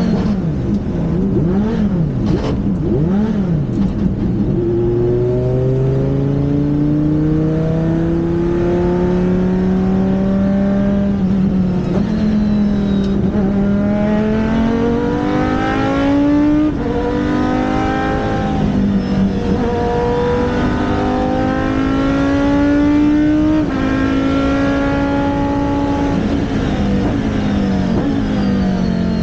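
Race car engine running hard, its pitch climbing through the gears and dropping at each shift, with quick up-and-down blips in the first few seconds.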